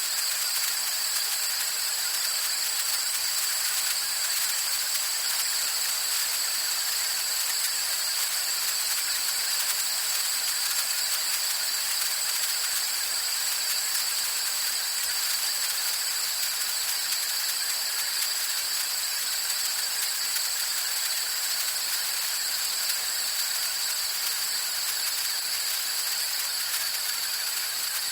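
Compressed air escaping in a steady, high-pitched hiss that holds the same strength throughout.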